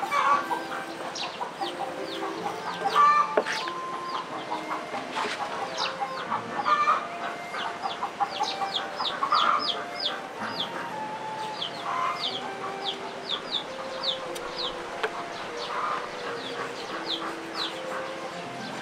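Birds calling: a long run of short, high, falling chirps, about two or three a second, over lower calls.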